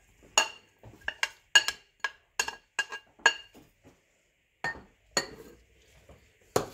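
A spoon clinking against a plate as chopped vegetables are knocked off it into a glass bowl: a quick run of about nine sharp clinks, then a few more spaced out near the end.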